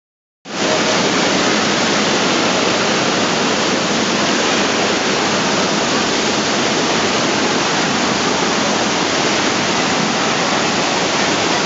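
Steady, loud rush of churning water that cuts in abruptly about half a second in and holds even throughout.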